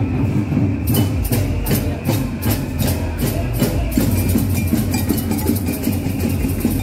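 Music with a steady beat of sharp percussion hits, about three or four a second, coming in about a second in.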